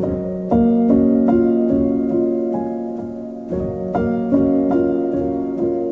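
Gentle background piano music: single notes and chords struck every half second or so over held lower notes.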